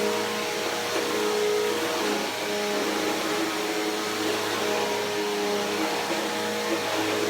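Bissell PowerForce Helix Turbo upright vacuum cleaner running steadily: a motor hum with held tones over a rush of air.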